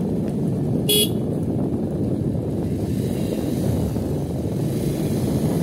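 A short vehicle horn beep about a second in, over a steady low rumble of a vehicle on the move.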